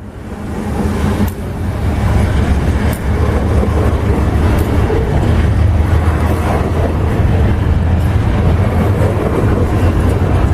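Freight train passing at close range: a loud, steady rumble of rolling wagons on the rails with scattered clicks, swelling in over the first second or two.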